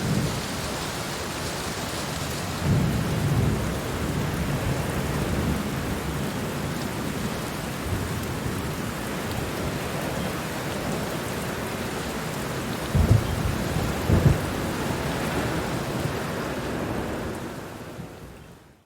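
Heavy rain coming down in a steady dense hiss, with low rumbles swelling up about three seconds in and twice more around thirteen to fourteen seconds. The sound fades away near the end.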